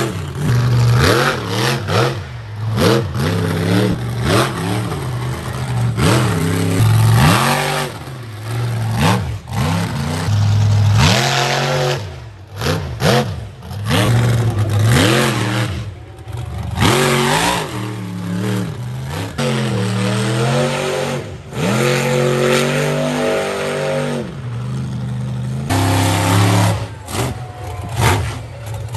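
Monster truck engines revving hard over and over, the pitch sweeping up and falling back again every second or two.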